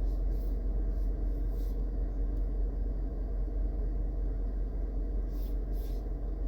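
A steady low rumble over a deep constant hum, with a few faint brief rustles.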